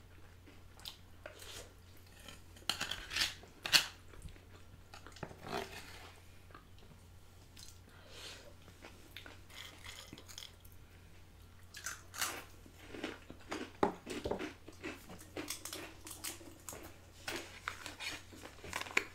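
Close-miked chewing and crunching of mac and cheese, Flamin' Hot Cheetos and Doritos: irregular mouth clicks and crisp crunches with short pauses, busier in the second half.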